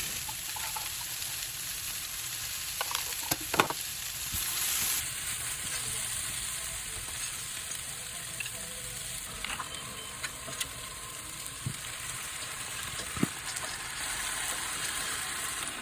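Food sizzling as it fries in a pan, a steady hiss with a few sharp knocks of a utensil against the pan.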